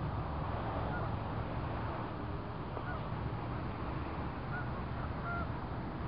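Steady low outdoor noise, like wind on the microphone, with a few short, faint bird calls scattered through it.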